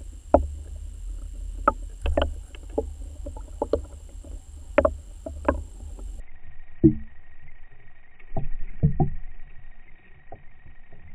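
Muffled sound through an underwater camera: a low rumble with a faint steady high whine, broken by about a dozen irregular sharp knocks and clicks. About six seconds in the rumble drops out and a few heavier, duller knocks follow.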